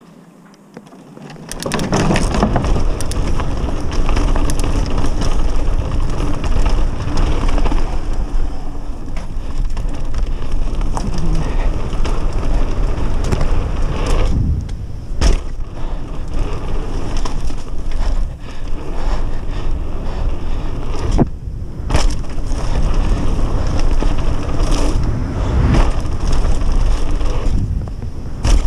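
Downhill mountain bike riding fast down a dirt trail: steady wind noise on the microphone over the tyres crunching on dirt and the bike rattling, with a few sharp knocks from bumps. It starts a second or so in.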